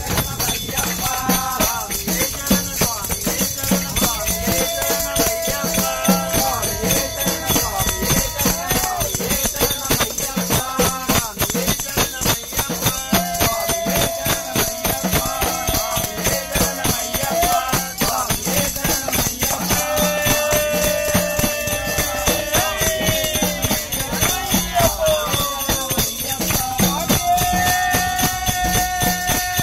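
Devotional Ayyappa bhajan: voices singing long drawn-out notes over a fast, steady jingling percussion beat.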